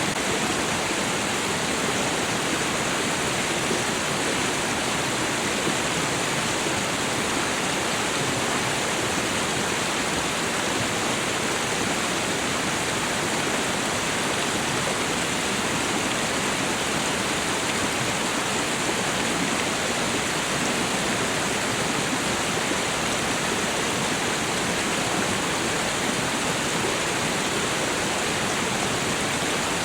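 Meltwater stream and small waterfall rushing steadily.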